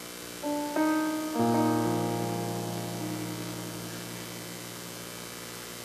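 Soft keyboard chords with a piano sound. A couple of notes come in about half a second in, then a fuller chord with a low bass note about a second and a half in, held and slowly fading away.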